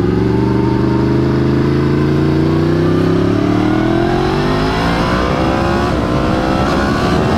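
Yamaha FZ-10 motorcycle engine accelerating hard, its note climbing steadily through the revs in one long pull, with wind rushing past.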